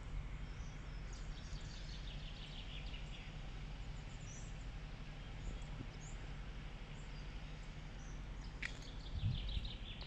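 Small bird chirping and trilling in two short bouts, about a second and a half in and again near the end, over a low steady hum.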